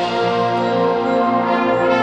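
Student concert band playing a loud, held chord, with brass and woodwinds sustaining together.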